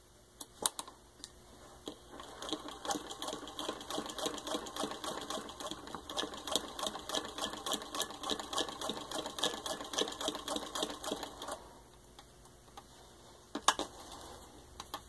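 Antique Singer 15-30 treadle sewing machine, turned by hand at the handwheel, stitching through six layers of denim: a quick, even clacking of the mechanism for about ten seconds before it stops. A couple of sharp clicks follow near the end.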